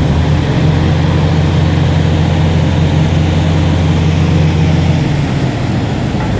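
A vehicle engine running steadily with a low hum that drops away about five seconds in, over a constant rushing noise.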